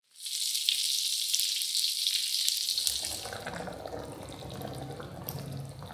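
Hot oil sizzling and crackling in a pan for the first two and a half seconds. It gives way to a softer bubbling and pouring as coconut milk is poured into a simmering curry.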